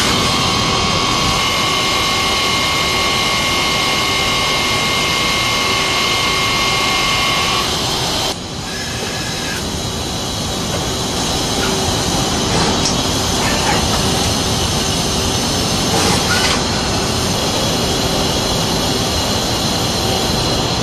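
Mazak Quick Turn Nexus 200-II MSY CNC turning centre running and cutting: a loud, steady mechanical noise with a high steady whine. The whine stops abruptly about eight seconds in, where the sound dips and then carries on as steady machine noise.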